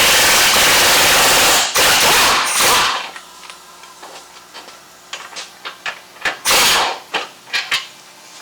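A power tool running loudly for about three seconds, dipping twice briefly, then stopping; after it come light metal clicks and clinks of tools and one more short burst of the tool about six and a half seconds in.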